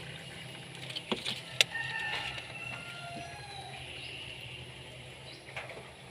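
A few light clicks and knocks, one sharp click about one and a half seconds in, over a steady low hum.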